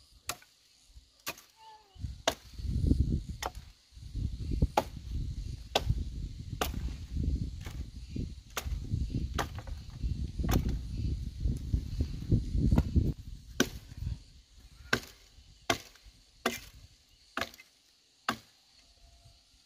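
Steady chopping, one sharp blow about every second, with a low rumble under the blows through the middle stretch.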